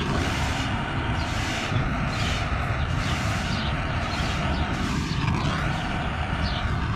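Snap-on butane heat torch burning with a steady rushing noise, heating a solder-seal wire connector so its solder melts.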